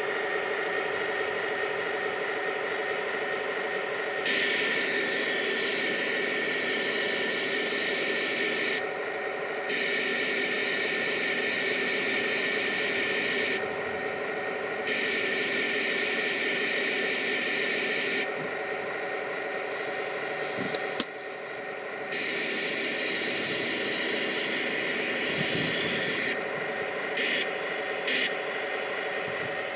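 Radio-controlled Tiger tank's simulated engine sound running steadily. Louder, hissier spells of a few seconds each cut in and out four times as the tank is driven, with a sharp click a little past the middle.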